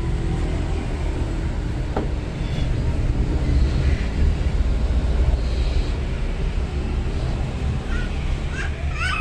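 A latex balloon being blown up by mouth, breath pushed into it in long blows, over a steady low rumble of road traffic.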